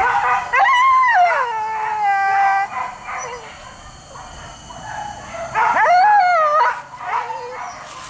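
Leashed boar-hunting dogs howling and whining. There are two long cries that slide down in pitch, the first about half a second in and the second about five and a half seconds in, with short whimpers and yips between them.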